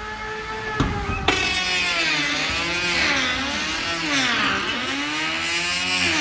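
Combat robots' electric motors whining, the pitch sweeping up and down again and again as they drive and spin. Two sharp knocks about a second in.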